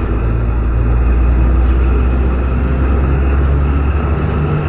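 Ikarus city bus under way, heard from inside the passenger cabin: a steady low engine drone with road noise, the pitch of the drone shifting near the end.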